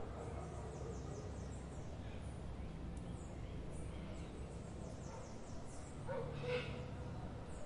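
Outdoor garden ambience: a steady low background rumble with faint high bird chirps, and a dog barking once, distant, near the end.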